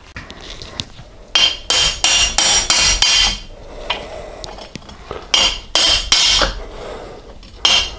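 Hammer striking a steel socket to drive a sealed swing arm bearing into the pivot bore of a 1983 BMW R80ST monoshock swing arm, metal on metal with a ringing note. The blows come in two quick runs of about six and then four, roughly three a second, with one more blow near the end.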